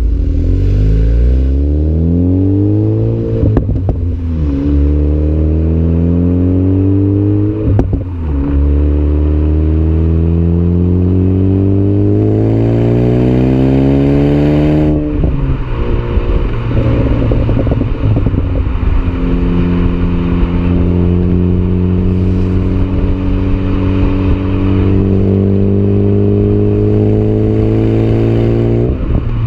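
Ford Focus ST's turbocharged four-cylinder engine through a Magnaflow exhaust, accelerating hard through the gears: the note climbs in pitch in several pulls, the longest about eight seconds, each broken by a gear change with a short sharp crack. In the last third it settles into a steadier drone that climbs slowly.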